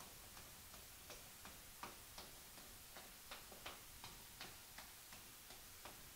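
Faint, light clicks, about three a second and fairly evenly spaced, over a low hiss; a few near the middle are a little louder.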